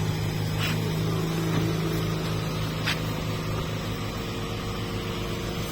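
A car's engine running steadily, heard as a low even hum from inside the cabin, with a few faint clicks.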